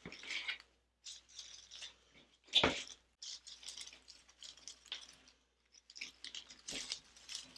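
Artificial leaves and stems rustling and crackling as they are pushed into a grapevine wreath, in short irregular bursts, with one sharper knock a little over two seconds in.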